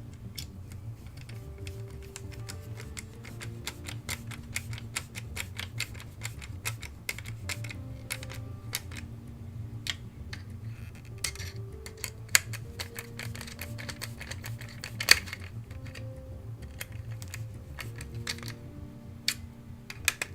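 Rapid, irregular clicks and taps of small plastic model-kit parts, screws and hand tools being handled and fitted, with one louder knock about 15 seconds in. Soft background music plays underneath.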